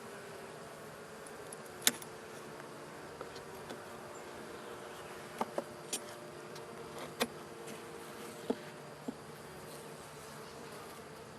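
Honey bees buzzing around an opened hive, a steady hum, with several sharp clicks or knocks scattered through, the loudest about two seconds in.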